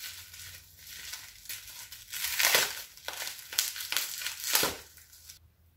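Makeup product packaging being unwrapped by hand: a run of rustles and crackles that swell a few times and stop shortly before the end.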